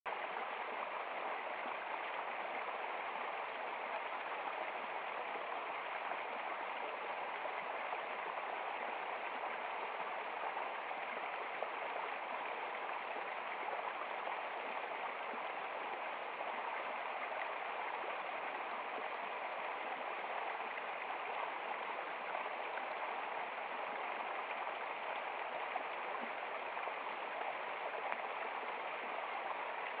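Small forest stream running over rocks in a low cascade: a steady rush of flowing water.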